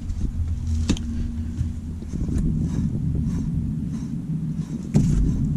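Rear wheel hub bearing of a ZAZ Sens rumbling as the wheel turns, with faint ticks about twice a second and a couple of sharper clicks. The rumble is the sign of a worn, noisy hub bearing.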